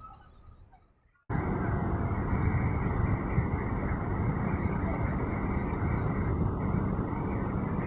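Faint quiet for about a second, then a sudden cut to a loud, steady rushing noise of a moving vehicle: road and wind noise as the recording travels along the terminal apron.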